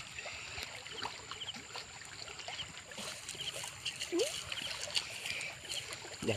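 Riverside ambience: a steady rush of flowing water, with small high chirps repeating throughout and a few light rustling clicks from close handling.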